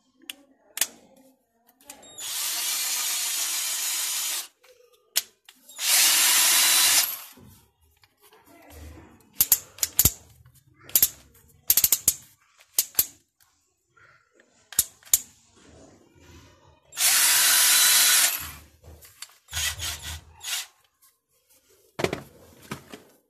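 A 12-volt cordless drill/driver's motor spins up three times with a steady whine: about two seconds for the first, a shorter and louder run a few seconds later, and another loud run of about a second and a half later on. In between come clusters of sharp clicks from its torque-adjustment collar being turned, plus a few handling knocks.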